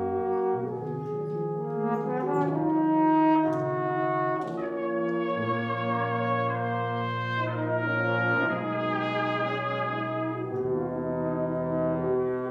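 Brass quintet of trumpets, French horn, trombone and tuba playing slow, sustained chords that change every second or two, with the tuba holding low notes underneath.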